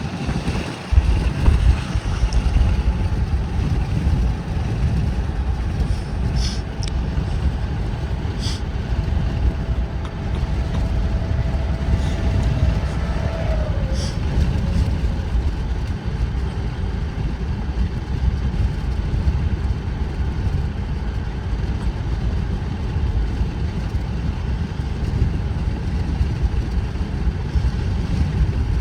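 Steady low rumble of road and engine noise from a car driving at about 35 mph, with a few faint ticks around the middle.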